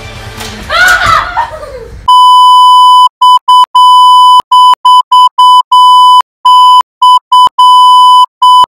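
Over guitar music, a yell and a clatter of wooden Jenga blocks as the tower collapses. From about two seconds in, a loud, steady electronic beep tone switches on and off in an irregular pattern of short and long beeps, and the music stops.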